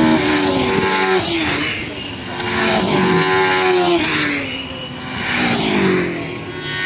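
Racing cars passing one after another at speed. Each engine swells and then drops in pitch as it goes by, about three pass-bys in a few seconds, with the next car coming in near the end.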